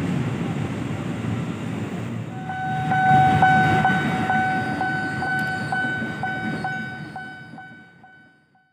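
Low rumble of a KRL electric commuter train at a station platform. About two and a half seconds in, a steady high-pitched tone with a light pulse about twice a second sets in over it, then slowly fades out near the end.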